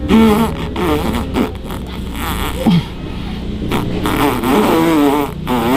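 A man blowing hard into a flat bicycle tyre's valve by mouth, his lips buzzing and sputtering in a raspberry-like sound that wavers in pitch, with quick downward swoops about halfway and at the end.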